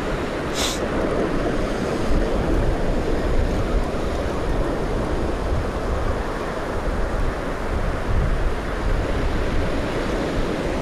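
Atlantic surf breaking and washing up the beach in a steady rush, with wind rumbling on the microphone.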